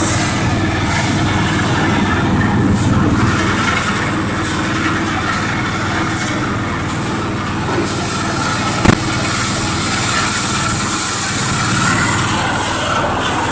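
Rice milling machine running steadily with a loud mechanical drone, with one sharp knock about nine seconds in.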